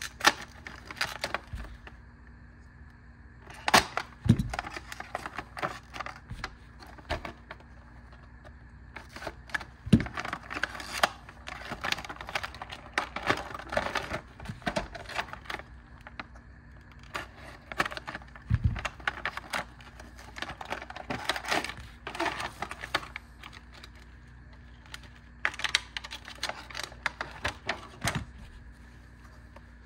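Small retail packaging being handled and opened by hand: irregular plastic clicking and crackling, with a few dull knocks about 4, 10 and 19 seconds in.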